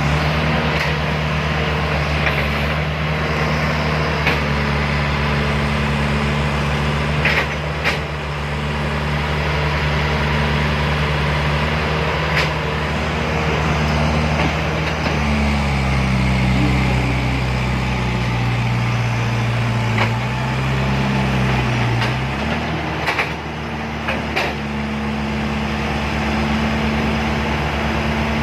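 Heavy diesel engines of heavy machinery working uphill, running steadily under load. The engine note drops for several seconds past the middle and then climbs back, with a few short metallic clanks.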